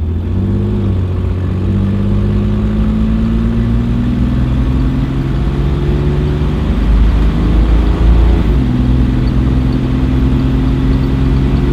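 Toyota Land Cruiser's inline-six engine under full throttle in a 0-to-60 run, its note climbing steadily. About eight and a half seconds in, the pitch drops sharply as the transmission shifts up, then starts climbing again.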